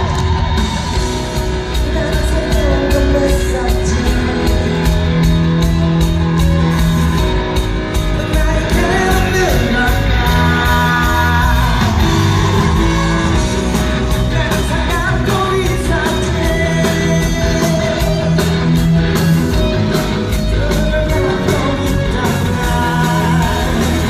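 Live rock band performing with a male lead singer: drums keep a steady beat under bass, guitar and a sung vocal line.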